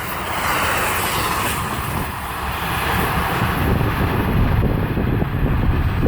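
Wind buffeting the microphone in irregular low gusts that grow stronger toward the end, over a steady rushing noise.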